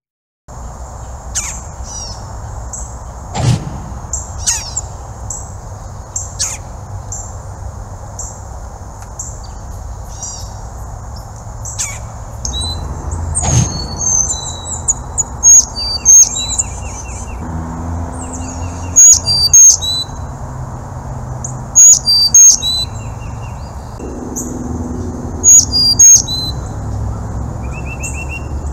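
Carolina chickadees calling: short high chips and loud paired high notes, with runs of rapid buzzy notes in the second half. A steady high insect drone and a low background rush run underneath.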